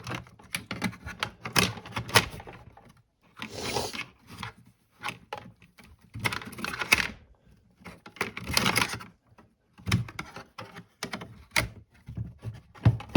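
Handling noises from working on a plastic radio case: scattered small clicks and knocks, with three short scraping rubs about three and a half, six and a half and eight and a half seconds in.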